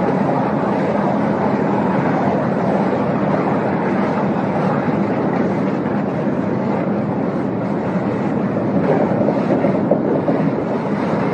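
Oil drilling rig machinery running as the drill pipe works in the rotary table: a loud, steady mechanical din with a low hum underneath.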